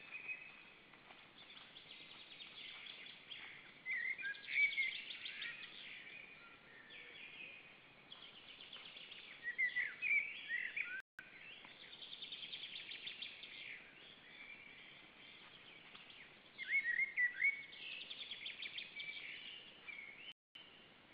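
Songbirds singing in the woodland around the nest: a bird repeats a short, fast-trilled phrase every few seconds over a faint steady hiss. The sound cuts out briefly twice, about eleven seconds in and near the end.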